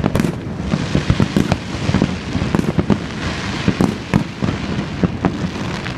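Aerial fireworks going off: many sharp bangs at irregular intervals over continuous crackling.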